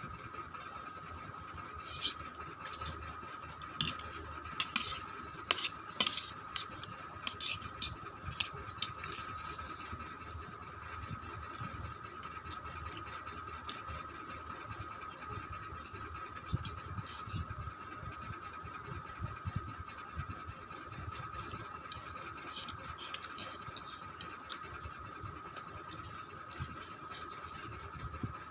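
Cutlery clicking against a dish while Maggi noodles are eaten. The sharp clicks come thick and fast for the first several seconds and only now and then after that, over a steady high-pitched hum.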